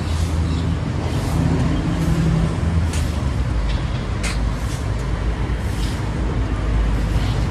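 A large vehicle engine running steadily with a low hum, with a few short sharp hisses about three and four seconds in.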